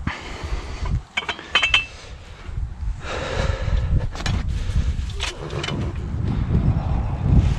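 Farrier's metal tools clinking against each other and scraping on the hoof: a quick cluster of ringing clinks about a second in, a short scrape around three seconds, then single clinks, over a low wind rumble on the microphone.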